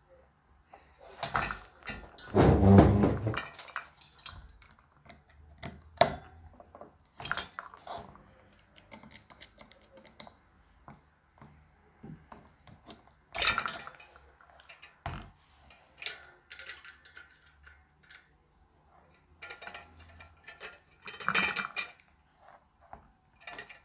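Metal tools clinking, knocking and scraping against small screws and a metal fan housing as Phillips screwdrivers are tried on stuck screws, in scattered clicks with a louder rattle about two to three seconds in and another near the end.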